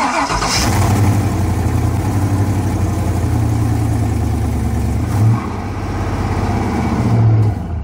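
A GM 5.3 LS V8 engine fires up and runs at a loud idle, swelling briefly twice, then dies away near the end.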